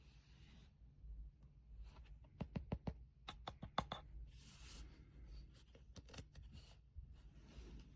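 Faint handling sounds: a quick run of sharp clicks about two and a half seconds in, then short bursts of rustling hiss.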